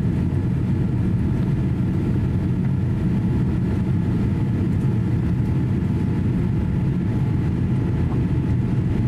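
Steady cabin drone inside a Boeing 787-8 climbing after takeoff: engine and airflow noise, heaviest in the low range, with a few faint steady tones above it.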